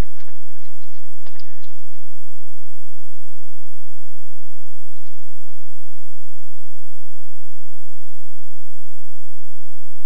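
Steady, high-pitched chorus of night insects trilling without a break. In the first second and a half there are a few sharp clicks.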